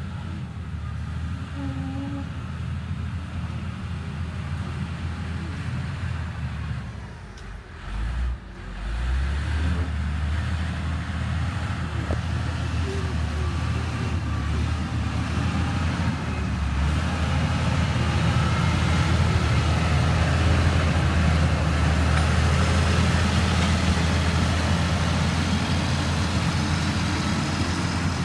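Diesel engine of heavy earthmoving machinery running steadily. It dips briefly about eight seconds in, then grows louder and fuller past the middle.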